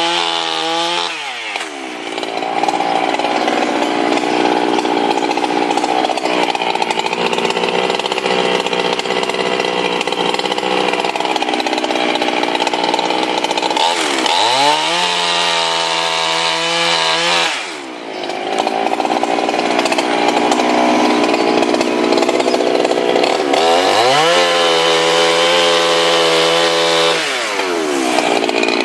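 Two-stroke gas chainsaw at full throttle, cutting through logs. Its engine pitch drops and roughens as the chain bites into the wood, then climbs again as it runs free between cuts, about three times.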